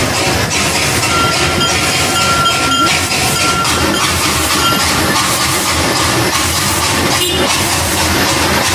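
Small steam locomotive hauling a train of sugar-cane wagons past at close range: a loud, steady running noise of engine and wagons, with a thin high tone sounding on and off in the first few seconds.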